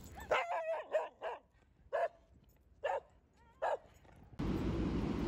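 A small curly-coated dog giving short barks, about one a second. Near the end a steady rush of street noise comes in suddenly.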